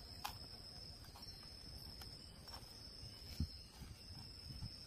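Insects keep up a steady, high-pitched drone, while a stone pestle crushes shallots, garlic and chillies in a clay mortar (ulekan and cobek) with a few soft thuds and clicks, the clearest thud about three and a half seconds in.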